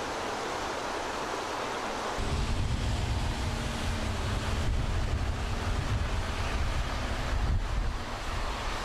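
Rushing floodwater as a steady noise, with wind buffeting the microphone as a low rumble from about two seconds in.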